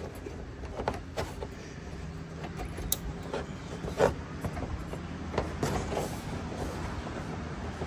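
MC4 solar cable connectors being handled and pushed together, giving scattered short clicks and plastic taps, the sharpest about three and four seconds in. A steady low hum runs underneath.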